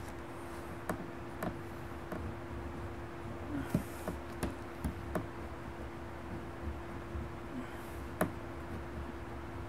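Pen on a sketch pad during inking: scattered light taps and clicks, with a couple of short scratchy strokes, over a steady low hum.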